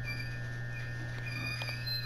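Small birds chirping in short, high, repeated calls over a steady low hum.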